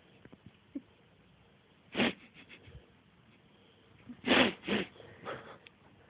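A bout of hiccups coming every couple of seconds: one sharp hiccup about two seconds in, then a louder cluster of two or three a little after four seconds.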